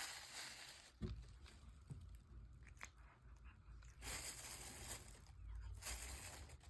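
A cat crunching and chewing food: faint, irregular crunches and small clicks.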